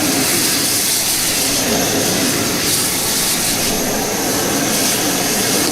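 Steady, loud rushing hiss from the stall's cooking equipment, unbroken and without a clear pitch.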